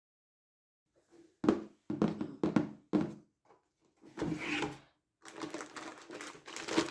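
A few separate knocks and thuds about half a second apart, a short rustle, then a run of small clicks: PC parts and their boxes being handled and set down.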